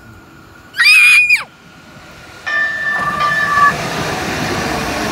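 A short, loud, high-pitched shriek about a second in, then an electric light-rail train pulling in right alongside the platform: a steady rumble of the passing cars, with two steady tones sounding for about a second as it arrives.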